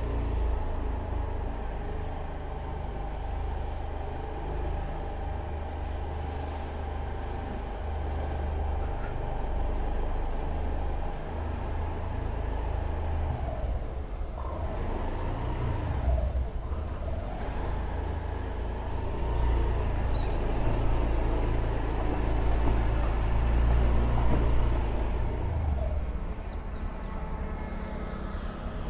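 Honda Activa 6G scooter engine running while riding, its pitch dropping about halfway through, climbing again a couple of seconds later, and dropping once more near the end, with a steady low rumble underneath.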